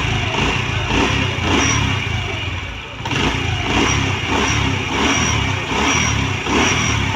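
Honda CD 70's small single-cylinder four-stroke engine running just after starting, its throttle blipped so the revs rise and fall about once a second. It is a sound check of the engine with a new timing chain set fitted to cure an earlier loud engine noise.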